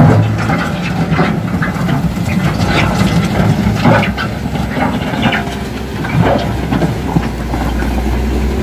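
Caterpillar 930K wheel loader's diesel engine running steadily under load, with irregular knocks and rattles as the machine drives with its bucket held level over loose soil. The low engine note grows stronger near the end.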